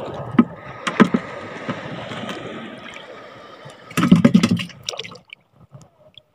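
Water sloshing and hissing around a kayak with a few sharp handling knocks, then about four seconds in a short, loud splash as a small honeycomb grouper drops into the water.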